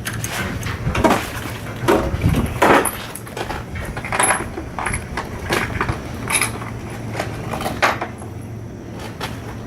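Irregular metallic clinks and knocks as a screw is backed out of the sheet-metal panel with the driver and the hardware is handled. The screw did not hold and is being swapped for a larger size.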